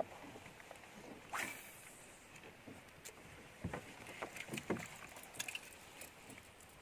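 Faint sounds of a small fishing boat at rest on the water: light knocks and clicks, with one brief whoosh about a second and a half in.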